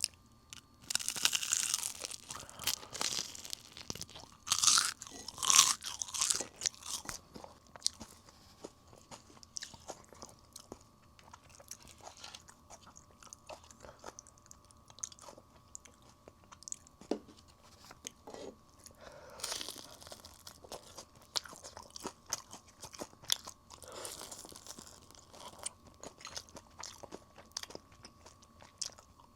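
Crisp fried chicken being bitten and chewed up close. Loud crunches come in clusters, several in the first few seconds and again about two-thirds of the way through, with quieter chewing clicks between them.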